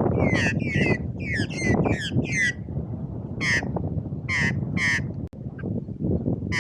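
A bird close by giving short, harsh, crow-like calls: a quick run of about six in the first couple of seconds, then three more after a pause.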